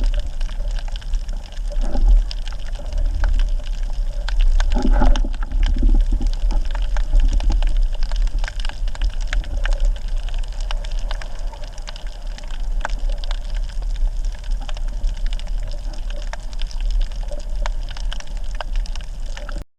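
Underwater sound of the sea picked up by a submerged camera: a steady low rumble with continual crackling and clicking.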